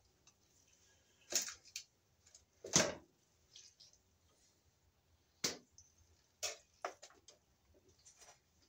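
Wire cutters and strippers working 14-gauge house wire: about five short, sharp snips and clicks spread over the seconds, the loudest about three seconds in.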